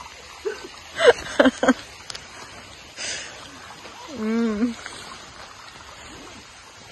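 Short vocal sounds over a steady background hiss: three quick calls about a second in, then a longer wavering call about four seconds in.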